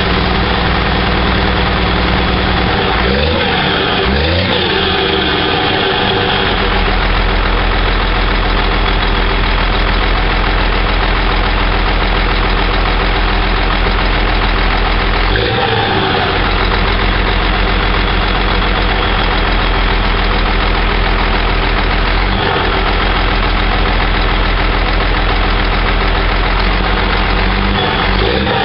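Scania 124 truck's diesel engine idling through a straight exhaust, steady, with the revs briefly changing a few seconds in and again a few times later.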